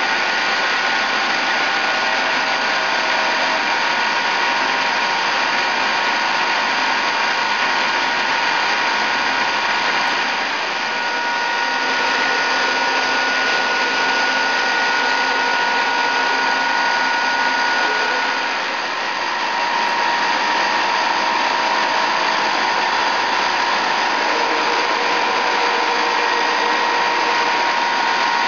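Giddings & Lewis 5-inch CNC horizontal boring mill running under power: a steady mechanical hum and hiss with several high, steady whining tones from its drive.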